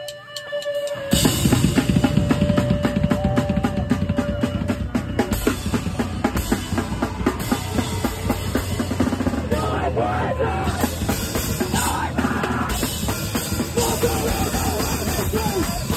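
Live rock band coming in about a second in: fast drum kit with bass drum, snare and cymbals, electric bass and guitar, and a singer's vocals over the top, all loud and dense.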